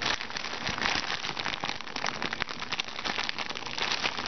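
Thin clear plastic bag crinkling and crackling continuously as hands work a toy figure out of it.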